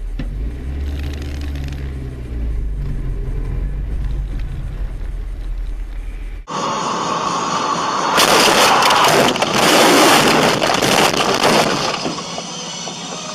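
Low engine rumble of a waiting car heard through a dashcam in the cabin. It cuts off sharply about six seconds in, and a loud rush of crash noise follows, with many impacts and breaking, loudest in the middle of that stretch.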